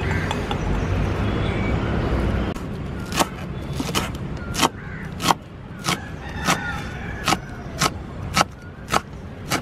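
A steady low rumbling noise that cuts off about two and a half seconds in, followed by a run of sharp knocks, a little under two a second, until the end.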